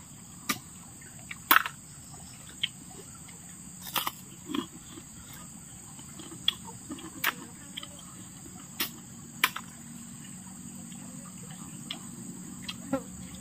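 Crickets chirring steadily, with scattered short clicks and smacks of people eating river snails from their shells.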